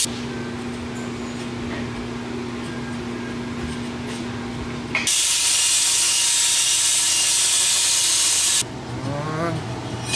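Belt grinder grinding a steel tube: a loud, even hiss that sets in about five seconds in and stops sharply near the end. Before it there is a steady low hum, and a few short wavering squeaks come just before the end.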